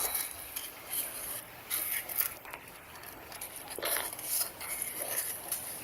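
Irregular scraping and light clinking of hard objects being rubbed and knocked together, in uneven bursts over a steady high hiss.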